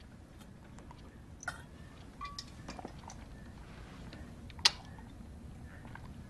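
Faint swallowing and small mouth and glass noises as a man drinks from a glass bottle, with a few soft clicks and one sharp click about two-thirds of the way in.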